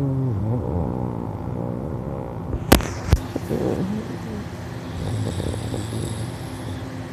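A person snoring in low, rumbling breaths, with two sharp clicks about half a second apart near the middle.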